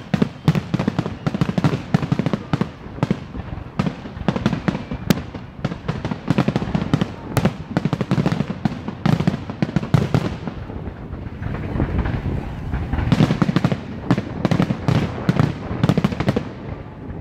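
Aerial fireworks display: a rapid, near-continuous barrage of shell bursts and crackling, many bangs a second. The barrage eases briefly about eleven seconds in, then builds again.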